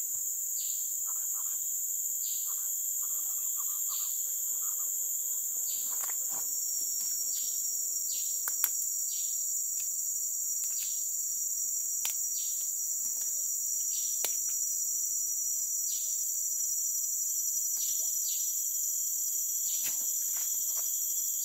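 Steady high-pitched chorus of tropical forest insects, with a bird repeating short falling whistles every second or two. A single sharp click stands out about eight seconds in.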